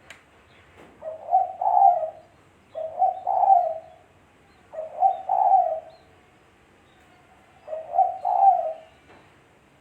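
Spotted dove (tekukur) cooing: four phrases of two or three low coos each, spaced two to three seconds apart.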